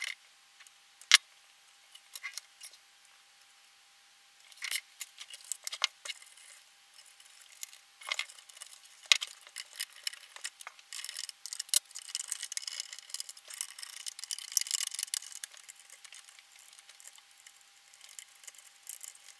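Small clicks, taps and rattles of metal parts and tools being handled on a vacuum tube amplifier chassis. There is a sharp click about a second in and a denser stretch of scraping and rustling in the second half, over a faint steady whine.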